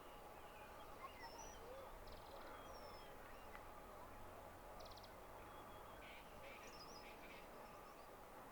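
Faint birdsong in the background: scattered short, high whistled chirps from small birds. Brief rattling trills come about two seconds and five seconds in, with a small burst of calls about six to seven seconds in.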